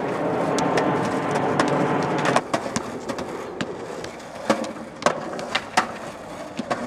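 Skateboard wheels rumbling steadily over concrete for about two and a half seconds, then stopping suddenly. Several sharp clacks of the board hitting the ground follow.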